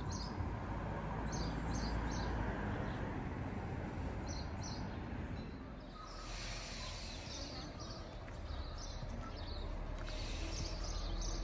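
Outdoor ambience with a steady low rumble, over which small birds give short chirps here and there, more of them in the second half.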